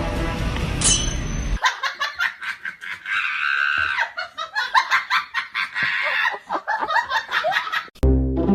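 Background music that cuts off suddenly about one and a half seconds in, followed by rapid, high-pitched laughter. Music starts again near the end.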